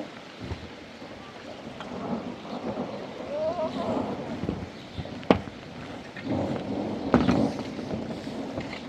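Rain falling during a thunderstorm, with thunder rumbling in two swells and a single sharp crack about five seconds in.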